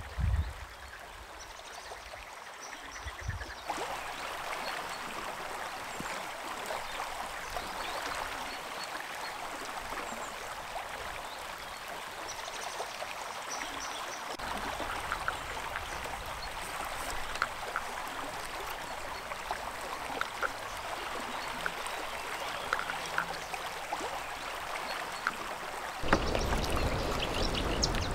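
Flowing river water: a steady rush, with short faint calls scattered through it. Near the end a louder low rumble joins in.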